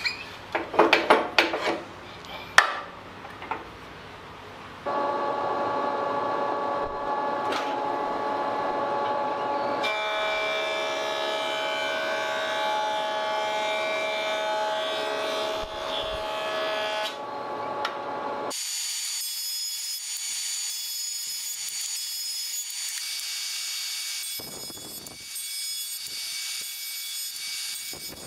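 A benchtop jointer running and planing the edge of a kauri pine board: a steady machine whine with cutting noise, after a few sharp knocks from handling the board in the first seconds. The tone shifts abruptly twice, and about two-thirds of the way through the low end drops out, leaving a thinner high whine.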